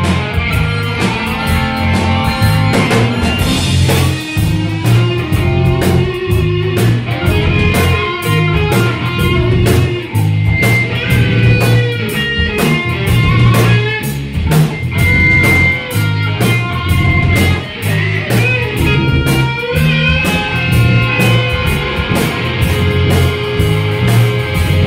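Live rock band playing, with electric guitars, bass guitar and drum kit over a steady beat.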